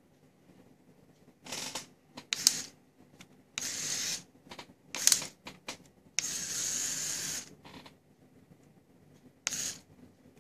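LEGO EV3 motors and plastic gears whirring in a string of short stop-start bursts as the remote-controlled Technic truck drives; the longest burst, over a second, comes about six seconds in.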